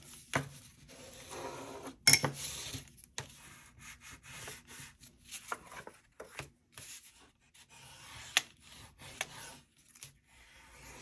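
Bone folder rubbing and scraping across cardstock in short strokes, pressing hinge creases into a book case. About two seconds in there is a sharp knock, the loudest sound.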